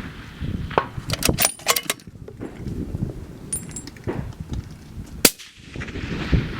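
Suppressed rifle shots: a cluster of sharp cracks about one to two seconds in, a short metallic ring about three and a half seconds in, and a single louder shot about five seconds in.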